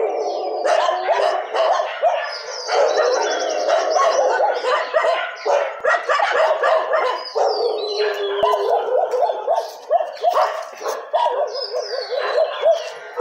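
Several street dogs barking at once, their barks overlapping in a continuous din.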